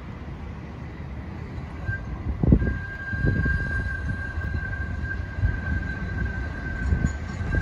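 Sheffield Supertram tram rolling round a curve toward the stop, its wheels squealing on the curved rail in one steady high tone from about two seconds in, over a low rolling rumble. A single thump about two and a half seconds in is the loudest moment.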